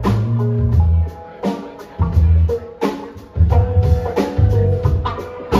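Live instrumental funk band playing: electric bass and drum kit in punchy stop-start phrases about a second apart, with electric guitar and keyboard over them.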